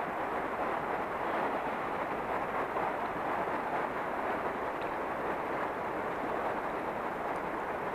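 Steady rush of flowing river current, an even hiss with no pauses.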